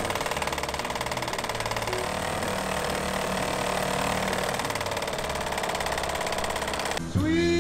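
Small Evinrude two-stroke dinghy outboard running steadily at low speed. Music comes in near the end.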